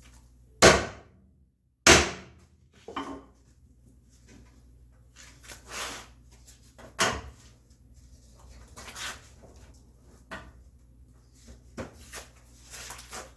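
Two loud, sharp wooden knocks about a second apart, then a smaller knock and a scatter of softer knocks and brief rubbing sounds: a walnut board and hand plane being handled and set up on the workbench.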